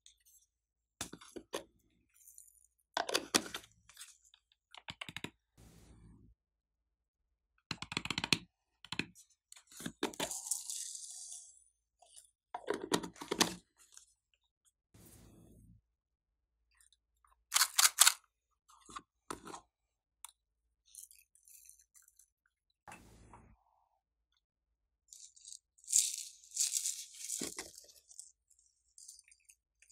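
Plastic add-in jars handled one after another: sharp clicks and knocks as lids are twisted and pulled off, and a couple of longer hissing rustles as foam beads and glitter sequins are poured out onto glossy slime. The events come singly, with silence between them.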